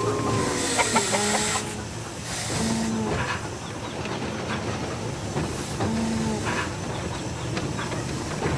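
Farm-animal calls repeating about every three seconds over the steady running noise of a train, with a burst of hiss about two seconds in.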